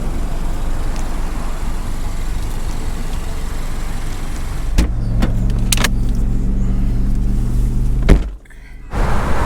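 Car driving: steady engine and road noise from a Ford Mustang. About five seconds in come a couple of sharp clicks and a steadier engine hum, then a sharp knock just after eight seconds and a brief lull before the noise returns.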